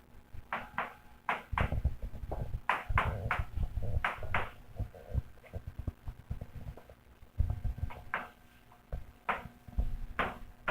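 Irregular light knocks and taps, more than a dozen, with pauses between groups: a pen knocking and tapping on a hard desk while an equation is written out.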